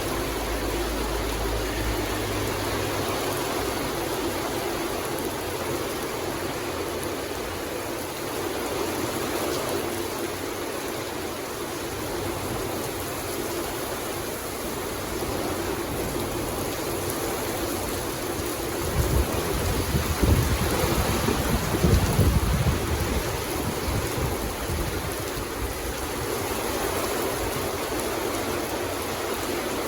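Steady rain falling in an even hiss. About two-thirds of the way in, a low rumble of thunder swells and dies away over a few seconds.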